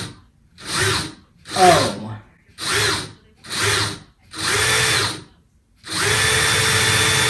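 DEWALT 20V MAX cordless drill driver boring a hole into a wall in short trigger pulses, five brief runs, then a longer steady run of about two seconds near the end.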